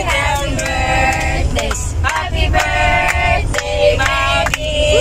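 A group of voices singing together with hand claps, over the steady low rumble of the vehicle they are riding in.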